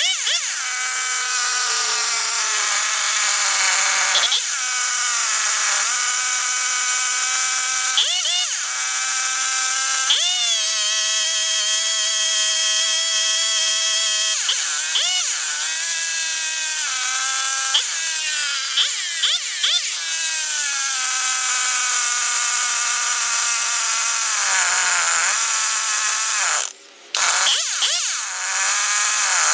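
Stihl 021 chainsaw's two-stroke engine running while its carburetor is tuned with a screwdriver. The engine revs up and down in repeated throttle blips and holds a high rev for a few seconds, with a momentary drop near the end.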